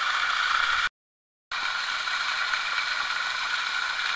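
Steady rushing and splashing of an artificial waterfall pouring into a pond, broken by a brief gap of dead silence about a second in before it picks up again.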